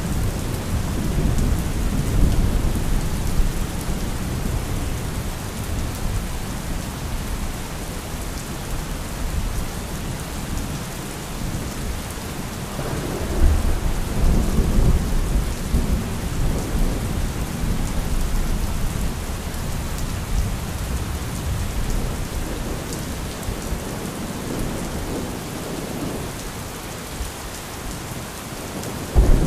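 Thunderstorm: steady rain falling, with thunder rumbling low. A long rumble comes near the start and another about 13 seconds in, and a sudden loud thunderclap breaks right at the end.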